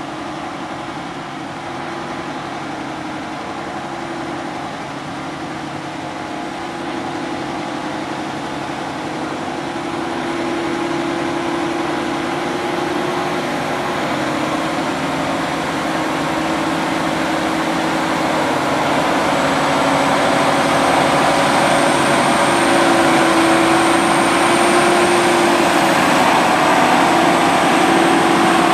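Diesel engine of a large four-track tractor running under load while it pulls an ejector scraper through soil. The sound grows steadily louder as the machine comes closer, and a thin high whine joins in about two-thirds of the way through.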